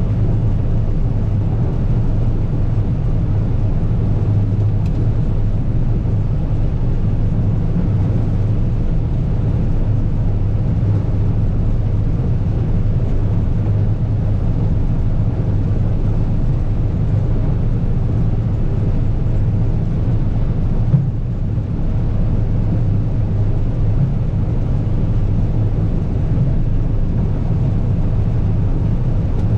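Large farm diesel engine running steadily with an even, low drone. A single brief knock about 21 seconds in.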